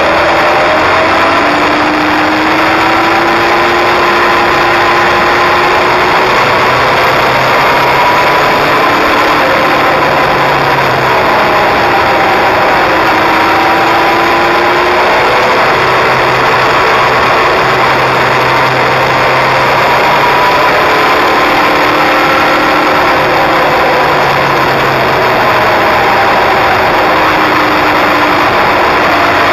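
Kawasaki inline-four sport motorcycle being ridden at speed, its engine note rising and falling slowly with the revs, under a heavy, steady rush of wind on the bike-mounted microphone.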